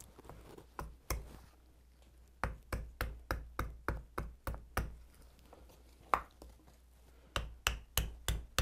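Small hatchet chopping into the bowl of a wooden spoon blank resting on a wooden stump, hollowing the bowl. The knocks are sharp and come in runs of about three a second, with a couple of short pauses.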